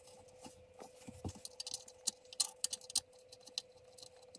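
Irregular light clicks and taps of small self-tapping bolts and hard plastic being handled as hands fit the bolts into the screw holes of an under-seat safe, over a faint steady hum.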